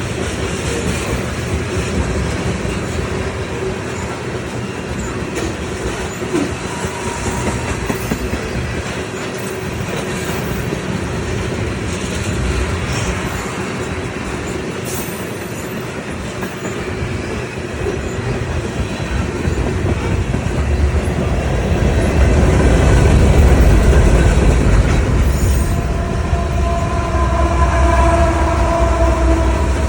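A train running on rails, wheels clattering over the track, growing louder with a heavy low rumble about two-thirds of the way through. Near the end several steady high tones sound together over it.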